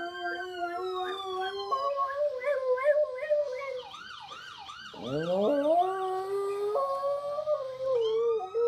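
A dog howling along with an ambulance siren: long held howling notes, with the siren's pitch warbling quickly up and down several times a second around the middle.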